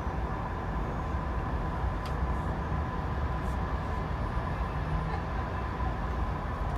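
Steady rumble of a VIA Rail passenger coach running along the track, heard from inside the car: wheels on the rails, with a faint steady high tone over it.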